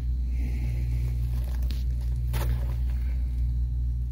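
A steady low engine hum, like an engine idling nearby, with a couple of faint light clicks.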